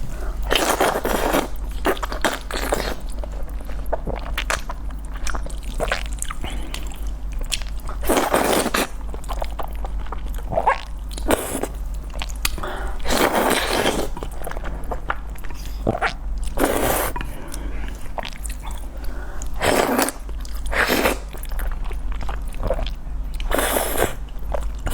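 Close-miked eating of spicy noodles: repeated slurps, each about half a second to a second long, with chewing between them, over a low steady hum.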